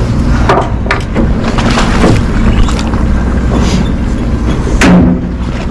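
A fishing boat's engine runs steadily with a low hum, mixed with wind on the microphone and water noise. Short knocks come through now and then, the loudest about five seconds in.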